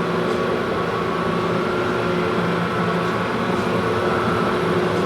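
Moriseiki MR1500G toolroom lathe running under power with its spindle turning, giving a steady hum with a whine of several held tones. The machine is running smoothly.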